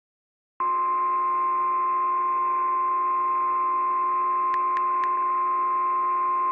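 Emergency alert attention tone: a single loud, steady high tone of about 1050 Hz, the warning alarm tone used by NOAA Weather Radio, heard through a narrow-band radio feed. It starts about half a second in, with a few faint clicks near the middle.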